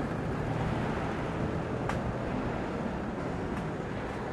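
Jet ski engine running steadily out on the water, mixed with small waves washing ashore. A sharp click about two seconds in.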